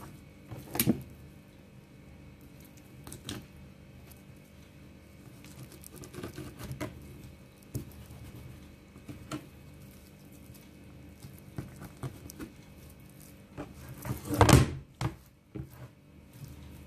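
Small scattered taps and handling noises as a raw wild boar haunch is worked with fingers and a knife on a plastic cutting board, with one louder thump near the end.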